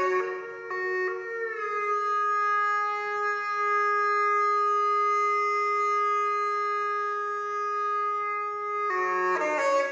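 Background music: a wind instrument plays a few short notes, slides slightly down into one long steady held note of about seven seconds, then returns to short notes near the end.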